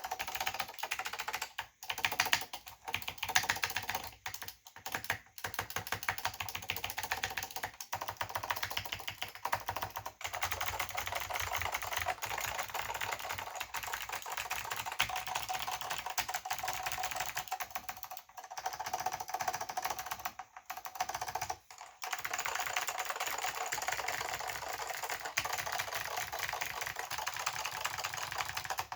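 Northgate OmniKey/Plus keyboard with Alps SKCM White switches (pine variety) and ABS doubleshot keycaps being typed on quickly: a dense, continuous run of key clicks broken by a few brief pauses.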